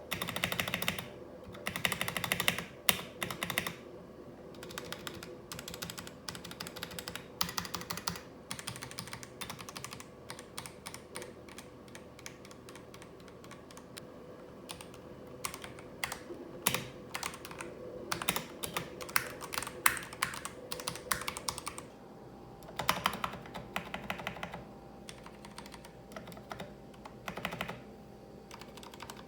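Typing on a Royal Kludge RK100 mechanical keyboard: bursts of rapid key clicks broken by short pauses.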